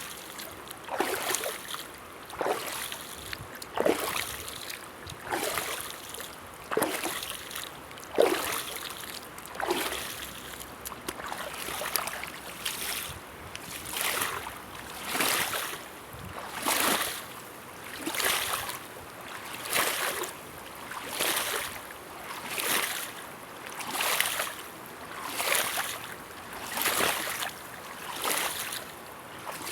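River water splashing and sloshing in a steady rhythm, one surge a little more than a second apart.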